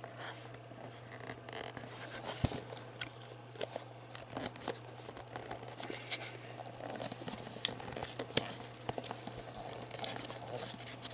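Hands working at opening a cardboard miniatures booster pack, a box that is hard to open: scattered scrapes, scratches and short tearing sounds of the card packaging, over a steady low hum.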